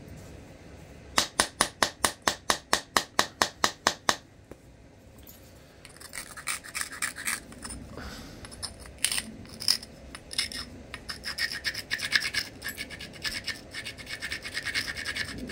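Abrader stone scraping along the edge of a flint biface, grinding the striking platforms: a quick run of about fifteen even strokes, about five a second, then after a short pause a longer stretch of quicker, uneven scraping. The platforms are being ground heavily because the stone is crumbly.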